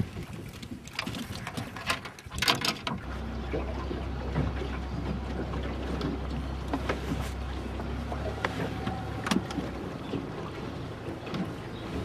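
Fishing boat's motor running with a steady low hum, under wind and water noise. The hum starts about three seconds in and fades near the end. A few knocks sound in the first seconds.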